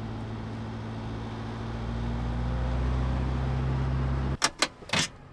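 Old Mercedes fire truck's diesel engine running while driving, growing slightly louder, then cutting off abruptly about four seconds in. A few sharp clicks follow near the end.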